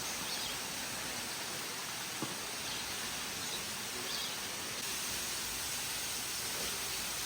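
Steady, even rushing noise with a few faint, short high chirps and one soft click about two seconds in.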